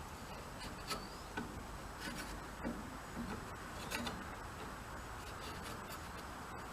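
A few faint taps and clicks over a low, steady background hiss, from a piece being handled and tried in a freshly mortised square hole to check its size.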